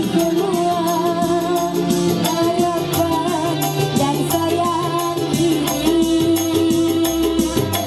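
Music: a wavering melody line held over a steady, fast percussion beat.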